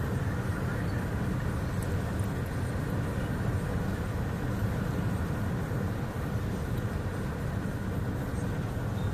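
Steady low rumble of a car driving along a paved road, heard from inside the cabin: tyre and engine noise.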